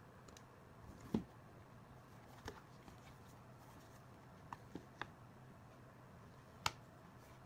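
Handling noise of a Ztotop iPad Pro case being picked up and turned over by hand: about six light, sharp taps and clicks, the loudest a little after a second in and near the end, over a faint low hum.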